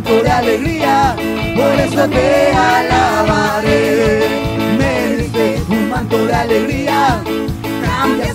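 Worship band playing praise music, with a steady drum beat under a melody line that slides up and down.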